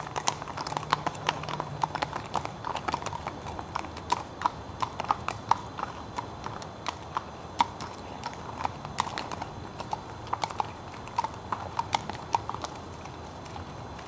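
Hooves of two walking Connemara ponies clip-clopping on a wet paved road in an uneven, overlapping rhythm. The hoofbeats grow fainter near the end as the ponies move away.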